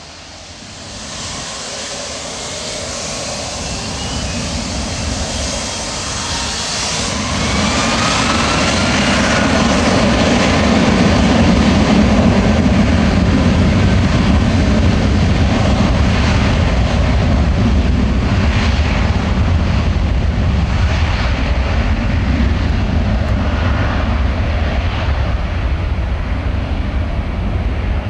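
Boeing 757-200's twin Rolls-Royce RB211 turbofans spooling up to takeoff power, a rising whine over a building roar. After about ten seconds this gives way to the steady, loud roar of the takeoff roll.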